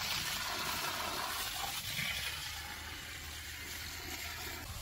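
Steady hiss of outdoor background noise with no distinct event.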